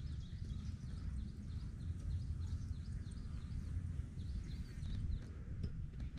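Low rumble of wind on the microphone in an open field, with a bird repeating a short high chirp a couple of times a second that fades out about five seconds in.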